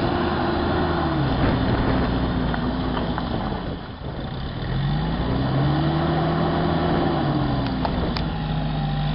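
SUV engine revving up and falling back under load as it works through deep mud: one rev rises and falls around the start, the engine drops low about 4 seconds in, then a longer rev builds from about 5 seconds in and holds until near the end.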